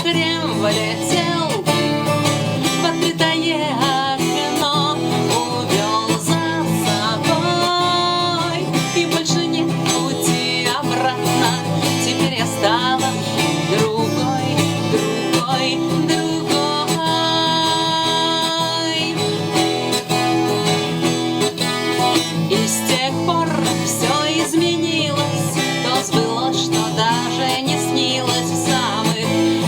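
A woman singing a song in Russian to her own acoustic guitar accompaniment.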